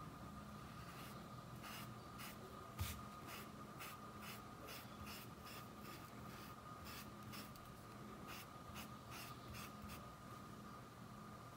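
Wide flat paintbrush loaded with white fabric paint scratching across woven cloth in short repeated strokes, about three a second, as the petal edges are outlined and the paint pulled inward. A single soft thump about three seconds in.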